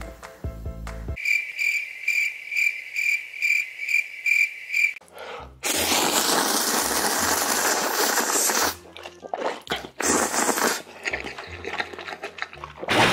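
A man loudly slurping a big mouthful of ramen noodles in one long pull of about three seconds, then a shorter slurp around ten seconds in. Before that, a high chirping pulses about two and a half times a second for a few seconds.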